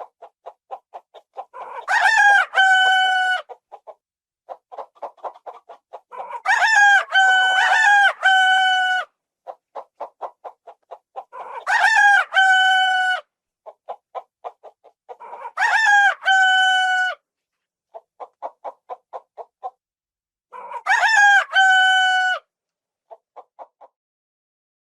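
Rooster crowing five times, about every five seconds, each crow a long held call, with quick runs of short clucks between the crows.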